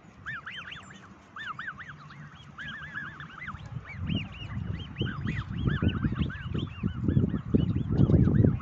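Black swans calling: a rapid, continuous stream of short, high, rising-and-falling whistling calls. From about four seconds in, a loud, irregular low buffeting sound joins in and grows louder toward the end.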